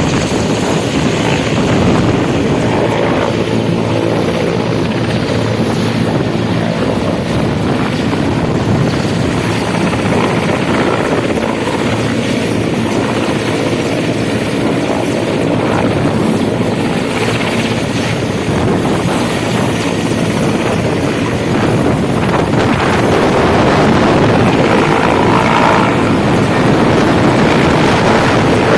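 Military helicopter's rotor and turbine engine running loud and steady, growing a little louder about three quarters of the way through.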